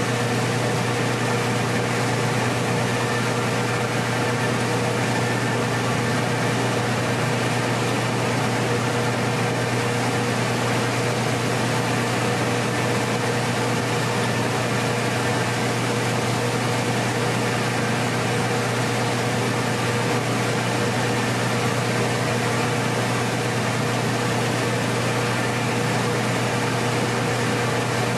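Rice mill machinery running: a steady low motor drone with a fainter steady tone above it, over an even rushing noise, with no change in level.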